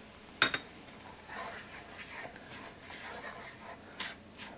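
Wooden spoon stirring and scraping a crumbly sausage, tomato and breadcrumb mixture around a nonstick sauté pan, in irregular strokes. A sharp knock comes about half a second in, and a shorter one near the end.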